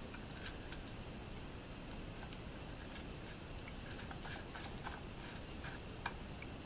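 Light metallic clicks and taps of small steel parts being handled and fitted on a metal-shaper gearbox, scattered and irregular, with one sharper click about six seconds in.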